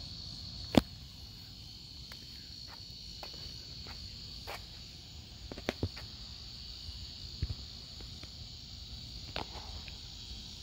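Crickets chirring steadily in the night, with a few scattered sharp clicks, the loudest about a second in.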